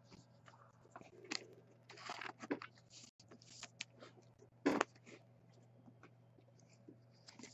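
Faint rustles and light scrapes of trading cards being handled, with a sharper tap about four and a half seconds in.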